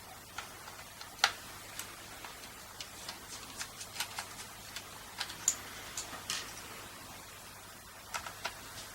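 Irregular small clicks and taps of a screwdriver working out the tiny screws that hold a car radio's circuit board, the loudest click about a second in.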